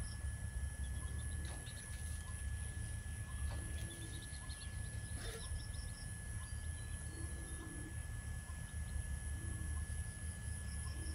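A hen giving a few short, soft, low clucks, spread out, over a steady low rumble.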